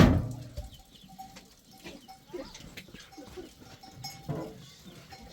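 Goats bleating, a loud bleat right at the start and another about four seconds in, with a small livestock bell clinking in between.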